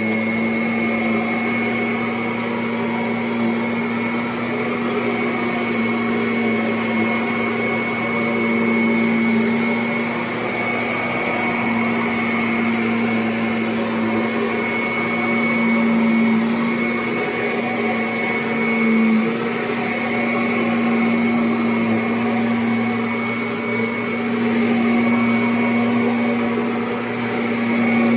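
Kirby Avalir 2 upright vacuum cleaner running steadily: a motor hum with a high whine over it, its level rising and falling a little.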